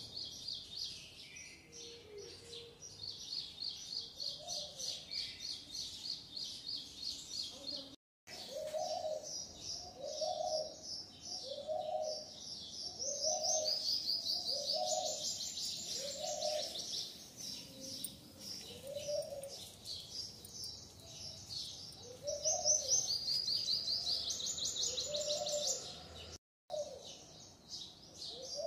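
Birds chirping in fast high trills, with a lower call repeating about once a second. The sound drops out briefly twice.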